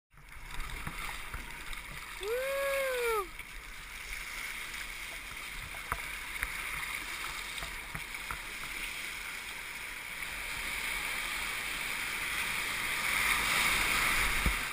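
Wind-driven lake waves and water rushing around a sea kayak, heard from a camera on the paddler's helmet, with a steady low rumble of wind. The water hiss builds near the end as the kayak surfs into a breaking wave's whitewater. About two seconds in, a single rising-then-falling call lasts about a second.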